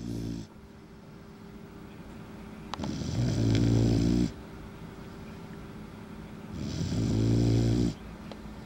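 Puppy snoring: two long snores, each about a second and a half and some four seconds apart, with the tail of another at the very start.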